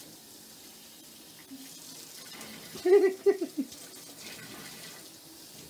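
Bathtub faucet running steadily into the tub, with a short, loud burst of voice about three seconds in.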